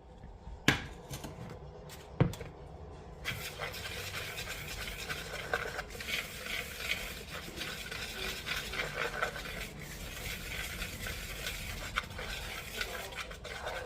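Two sharp knocks, then flour, cornmeal and the other dry batter ingredients being stirred together in a bowl, a steady scraping of quick strokes that starts about three seconds in.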